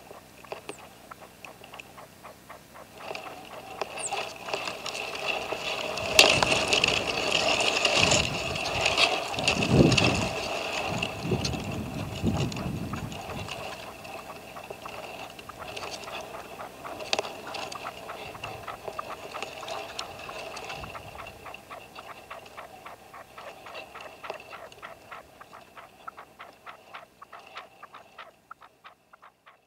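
Red-legged partridge decoy (reclamo) calling: a long run of rapid, repeated clucking notes, starting a few seconds in, loudest in the first half and fading toward the end. A low rumble comes in midway.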